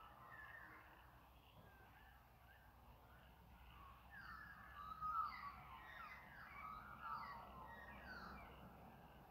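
Faint dusk chorus of wild birds, many short calls overlapping, growing busier about four seconds in.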